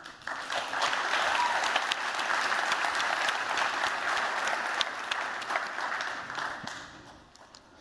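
Audience applauding: a dense patter of many hands clapping that starts just after the beginning and dies away near the end.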